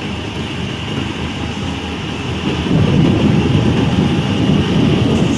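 Steady low rumbling noise with no clear pitch, growing louder about two and a half seconds in.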